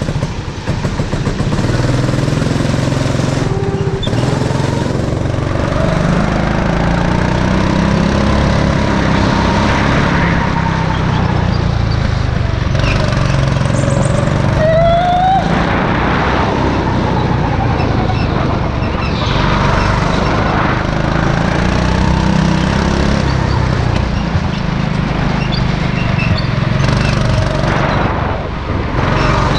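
Go-kart's small petrol engine running under throttle through laps of an indoor track, its pitch rising and falling as the kart speeds up and slows for corners.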